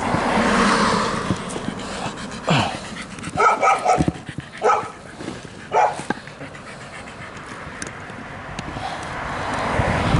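A small dog barking: a quick run of five or six short, high barks and yips from about two and a half to six seconds in.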